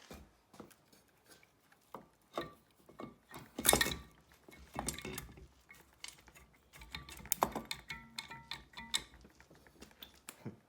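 Scattered metal clinks and knocks from hand tools and engine parts while a dirt-bike engine's cylinder head is worked loose, with a louder clatter about four seconds in and some brief ringing tones later on.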